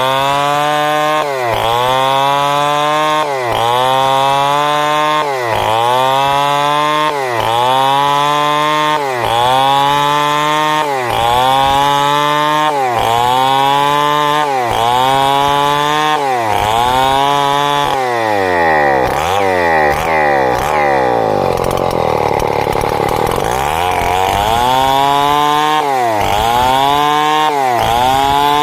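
Two-stroke chainsaw cutting timber into boards, its engine pitch dipping and climbing back about every two seconds as it works through the cut. About two-thirds of the way through, the engine drops to a low, wandering speed for several seconds, then picks up again into the same rhythm.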